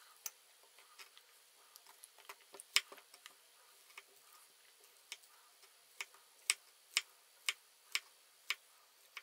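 Knife slicing a banana on a wooden cutting board: light taps of the blade on the board, scattered at first, then a steady run of about two taps a second over the last few seconds.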